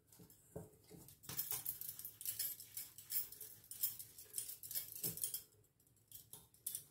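Hands pulling pieces off a ball of whole-wheat dough in a steel bowl and rolling them between the palms: faint, irregular soft pats and small clicks.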